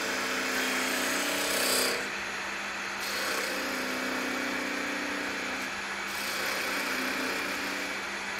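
A turning tool cutting the neck of a spinning green magnolia blank on a wood lathe: a steady scraping hiss of shavings over the lathe's hum, easing and picking up a few times as the tool moves.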